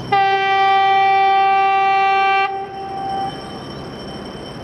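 TEP70BS diesel locomotive's horn sounding one long, steady blast of about two seconds that cuts off sharply. It is followed by the steady noise of the approaching train.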